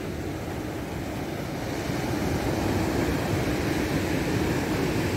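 Surf breaking on a sandy beach, with wind rumbling on the microphone; the noise swells a couple of seconds in.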